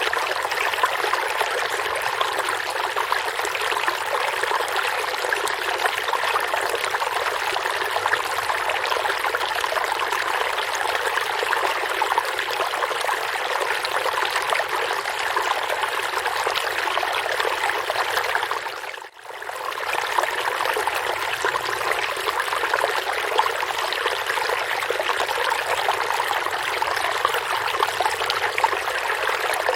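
Forest stream flowing steadily over rocks, an even rushing and trickling of water. About two-thirds of the way through it briefly fades out and comes straight back.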